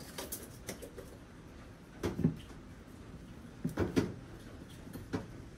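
A few light knocks and plastic clatters from handling a plastic dog-toilet tray and its drain hose. The loudest clusters come about two seconds in and about four seconds in.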